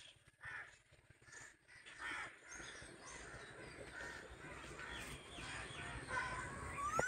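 Several birds calling over one another in quick, overlapping calls, growing busier later, with a loud rising call near the end.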